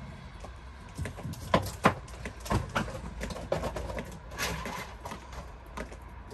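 Irregular knocks and clicks, a loud pair about a second and a half in, with a brief rustle a little after the middle.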